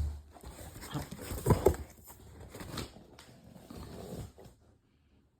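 Dutch Shepherd dog making sounds as a toy is taken from her, with a thump at the start and a few short, loud sounds about a second and a half in, fading to quiet near the end.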